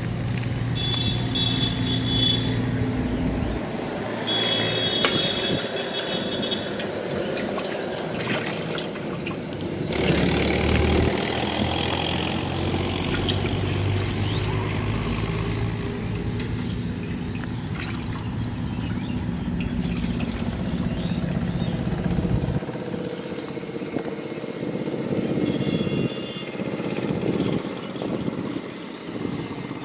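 A motor engine running, its low note shifting a few times before the deepest part drops away about three quarters of the way through.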